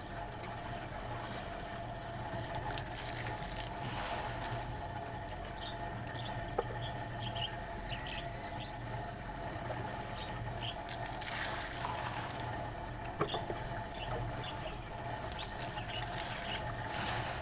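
A steady low mechanical hum with scattered short, high-pitched chirps and squeaks over it, and a couple of sharp clicks, one about six and a half seconds in and one about thirteen seconds in.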